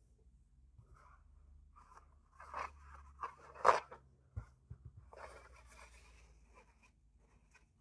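Scattered rustling and scraping of objects being handled on a desk, with a sharp click about three and a half seconds in and a short dull knock just after.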